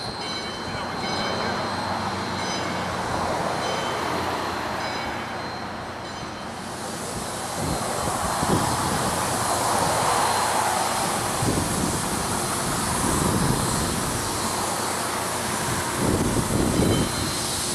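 2-8-2 Mikado steam locomotive standing with steam up. A strong steady hiss of escaping steam comes in suddenly about six and a half seconds in, and irregular deeper puffs follow, coming closer together near the end.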